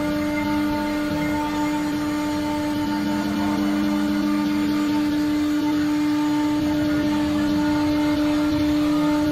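CNC router spindle running at constant speed with a steady high whine as its bit cuts a pattern into a sheet, with a rough cutting noise beneath.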